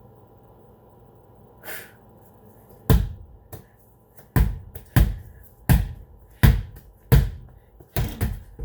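A series of about nine sharp thumps, starting about three seconds in and most coming roughly two-thirds of a second apart.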